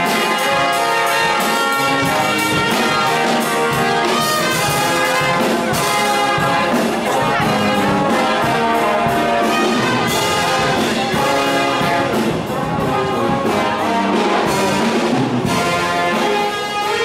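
Brass band music, with trumpets and trombones playing a tune over a steady beat.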